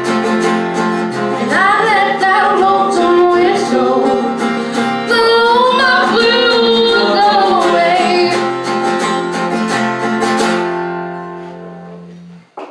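Live acoustic folk music: a woman singing over strummed guitar and plucked low bass notes. Near the end the song finishes, its last notes ringing out and dying away.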